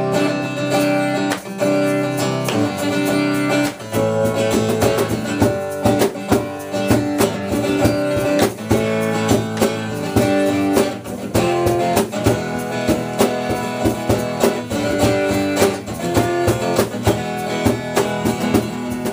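A band playing live, strumming guitar chords with no singing. The chords change about four seconds in, and a denser rhythm of strokes carries on from there.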